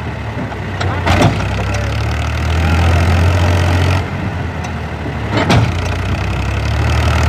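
Powertrac tractor's diesel engine idling steadily. Two sharp knocks come through, one about a second in and one about five and a half seconds in.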